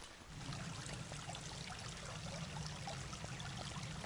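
Shallow creek trickling steadily over stones and gravel, with small scattered splashes.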